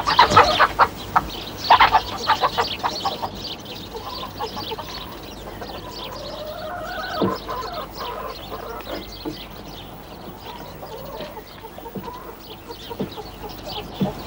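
Chickens clucking, with a flurry of wing flapping in the first two seconds as a hen flutters up.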